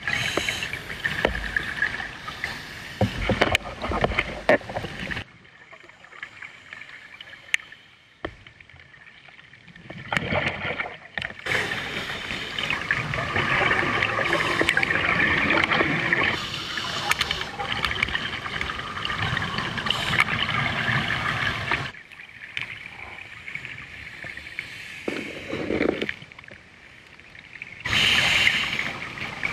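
Underwater sound from diving footage: a rushing, water-borne noise that swells and fades in long stretches.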